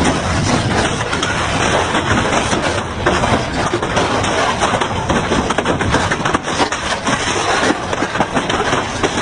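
Industrial double-shaft shredder running and tearing through material: a dense, continuous grinding crunch full of sharp cracks and knocks.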